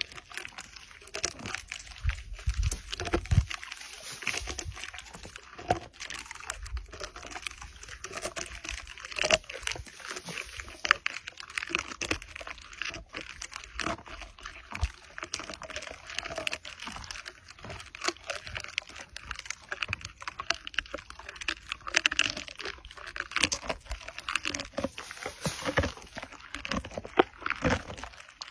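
A camel chewing a mouthful of dry thorny twigs at close range: irregular crunching and crackling of the brittle stems that goes on with no pause.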